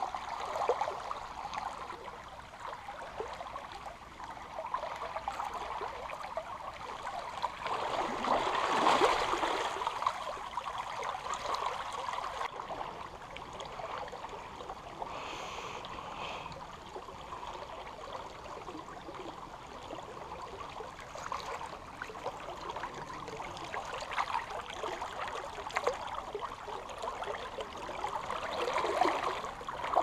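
Shallow stream water running over stones in a riffle, a steady babbling rush. It swells louder for a moment about nine seconds in and again near the end.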